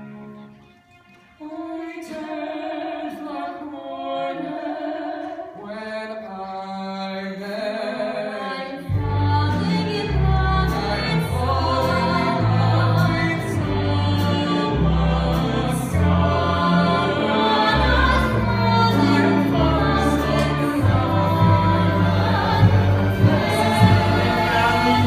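Live musical-theatre number: several voices singing together with a pit orchestra. After a brief hush, the singing starts about a second and a half in, and about nine seconds in a strong bass line joins and the accompaniment grows fuller.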